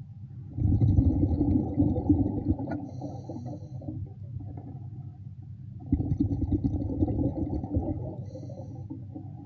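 Underwater rumbling of air bubbles from a diver breathing out, in two long bursts, the first starting about half a second in and the second about six seconds in.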